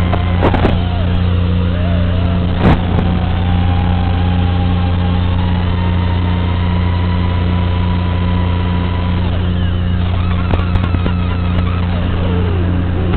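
FPV racing quadcopter in flight: its motors whine, the pitch wandering up and down with throttle, over a constant low buzz. A few sharp crackles, the strongest a little under three seconds in.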